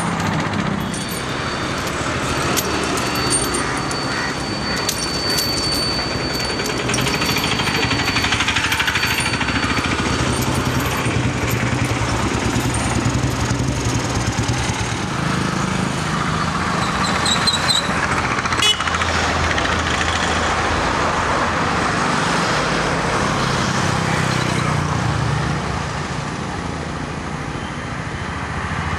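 Road traffic: motorcycle and car engines running close by, with a rough, rattling edge to the engine note. A short run of high beeps comes about seventeen seconds in.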